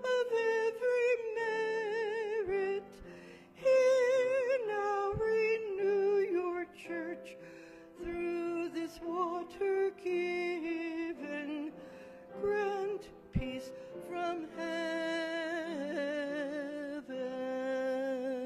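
A hymn being sung through its fourth verse, with wavering vibrato on the held notes. The last note is held for over a second and the singing stops at the very end.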